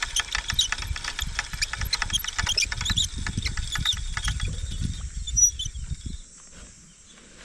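Fishing reel being wound in, giving a rapid run of clicks over handling rumble that stops about six seconds in, as the line is brought back to check the bait.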